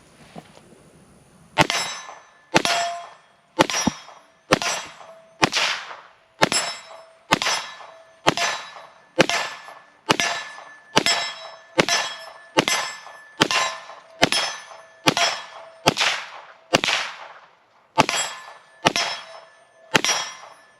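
CZ 75 TS Czechmate pistol fired about twenty times in a steady string, roughly one shot a second, each shot followed by a metallic ring as it strikes a steel target. The pistol cycles round after round without a stoppage, running the 26-round magazine after jamming with another magazine.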